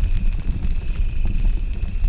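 Campfire crackling with scattered sharp pops over a low rumble, with crickets chirping steadily in a high pulsing trill.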